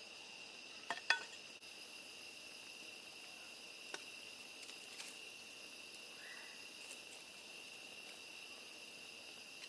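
Crickets and other insects singing in a steady, faint chorus. A few small clicks come about a second in and again around four and five seconds in.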